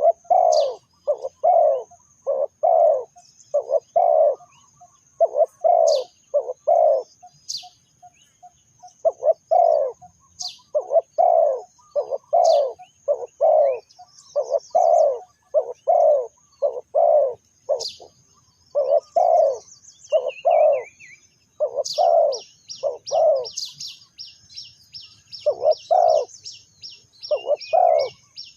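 Spotted dove cooing over and over, short low coos strung together in phrases with brief pauses between them. High chirps from another small bird come in now and then, and a fast trill of high ticks runs through the last few seconds.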